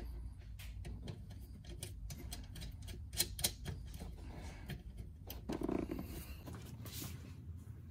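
Small metal clicks and taps of steel washers and lock washers being fitted by hand onto a golf cart solenoid's terminal posts, with a sharper click about three seconds in.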